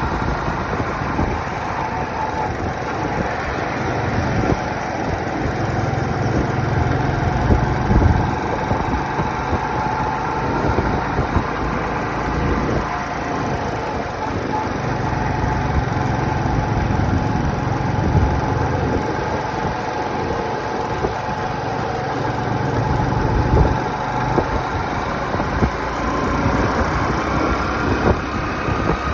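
Motorcycle engine running steadily while the bike is ridden along a road, with rushing wind and road noise, heard from the rider's seat.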